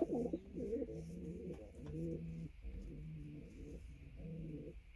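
Domestic pigeons cooing at a straw-lined basket nest: a steady run of low, repeated coos with short breaks between phrases.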